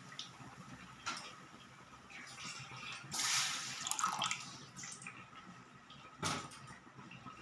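Water poured from above into a shallow layer of tamarind pulp in a metal kadai, splashing and gurgling for a second or two midway. A single sharp knock near the end.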